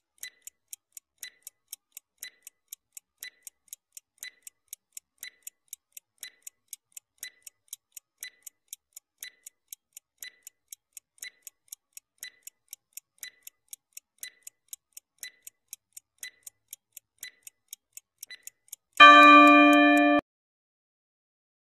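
Countdown-timer sound effect: a clock ticking evenly, about two ticks a second, for the timer's run down to zero. Near the end a loud alarm tone with several pitches sounds for about a second, marking time up.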